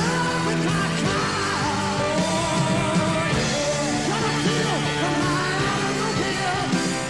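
A rock band playing live: drum kit and cymbals under a singing voice.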